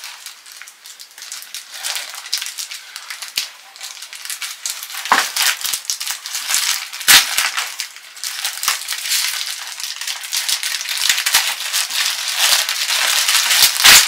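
Plastic packaging and small plastic parts being handled and opened: a dense crinkling and rattling, with sharp clicks about five and seven seconds in.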